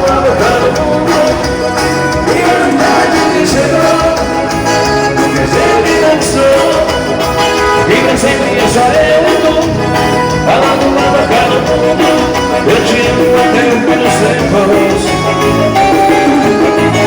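Band playing upbeat Brazilian dance music with a steady beat, mostly instrumental with some singing.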